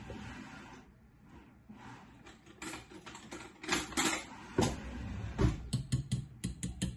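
A metal fork whisking eggs and milk in a stainless steel pan, tapping quickly and evenly against the pan, starting near the end. Before that, a few scattered clinks and knocks.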